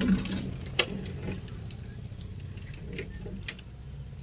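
A hand working in soil in a polythene-lined plastic crate: soft rustling with a few light, scattered clicks and clinks.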